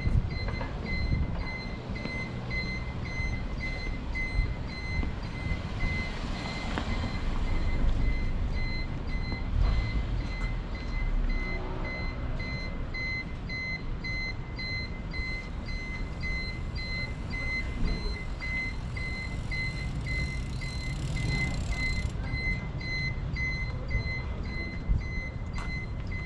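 An electronic warning beeper sounding a high beep over and over at an even pace, over the low rumble of street traffic.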